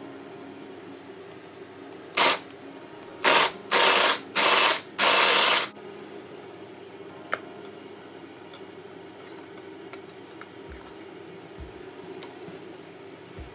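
Hand blender's chopper attachment pulsed five times, chopping capsicum and onion for a curry paste: one short burst, then four of about half a second each in quick succession. Only a few faint clicks follow.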